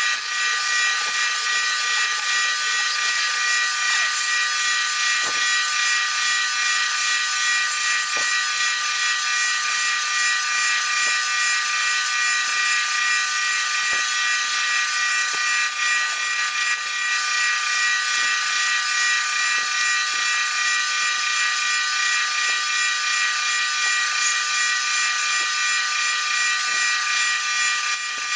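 Wood lathe spinning a post oak pen blank while a skew chisel cuts it, sped up so it comes through as a steady high hiss with a fixed whine of several tones and faint scattered ticks.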